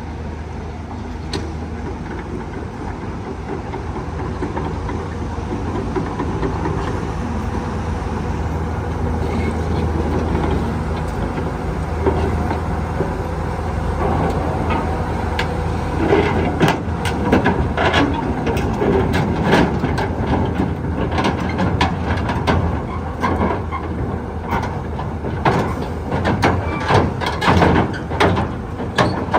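Diesel engine of a Hyundai R220-9S tracked excavator running steadily under load. From about halfway, repeated metallic clanks and knocks join it, typical of steel tracks moving.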